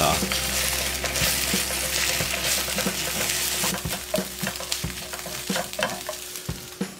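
Egg sizzling in a hot nonstick frying pan as it is stirred and broken up into scrambled egg with a silicone spatula, with short scrapes and taps of the spatula on the pan. The sizzle fades near the end.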